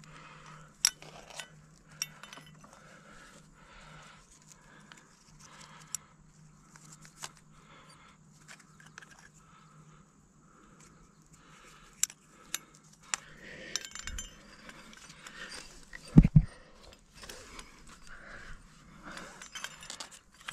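Climbing gear clinking and jangling: aluminium carabiners, cams and nuts on a harness rack knocking together as protection is placed in a crack and the rope is clipped into a quickdraw, in scattered sharp clicks. A heavy thump stands out about three quarters of the way through.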